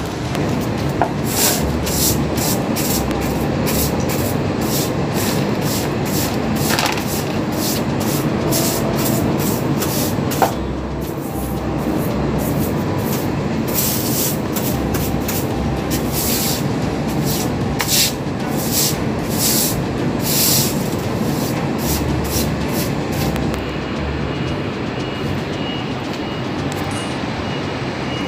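Stiff plastic-bristled broom sweeping wet floor tiles in repeated brisk swishing strokes, over a steady background hum of city traffic. A faint high beeping comes in near the end.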